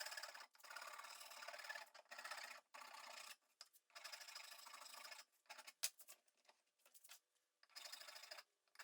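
Hand file rasping back and forth across a wooden axe handle, trimming the tongue so the maul head will seat down to the shoulder: a run of scraping strokes, roughly one a second, with a short pause and a click a little past the middle.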